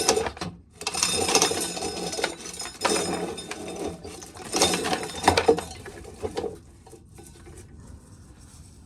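Dry corn kernels being shelled off the cob and clattering into a pail, a dense rattling that dies down about six and a half seconds in.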